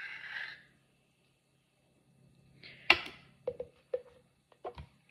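A kitchen utensil scraping and knocking against dishes while mayonnaise is measured out for tuna salad: a short scrape, then a sharp clack about three seconds in, followed by several lighter taps.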